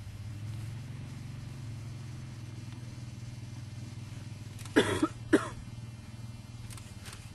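Two quick coughs close to the microphone, a little over half a second apart, over a steady low hum.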